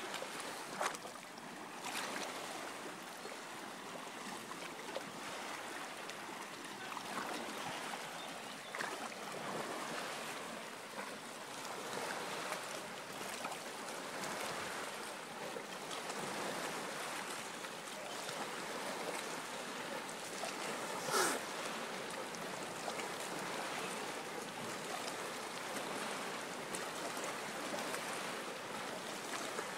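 Shallow seawater washing and lapping over a pebble shore, a steady watery hiss, with one brief, sharper, louder sound about two-thirds of the way through.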